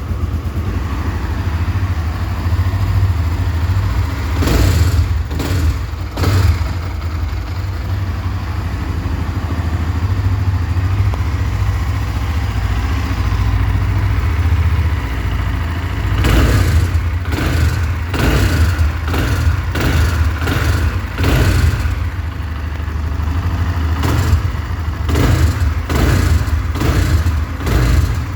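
Honda CB Twister 2020's single-cylinder engine idling steadily, with bouts of sharp clattering knocks, a few about five seconds in and many more through the second half. This is the strange engine noise the owner takes for a problem.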